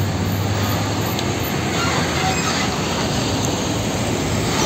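A UD Trucks Quester fuel tanker truck driving past, its diesel engine running under steady road and tyre noise.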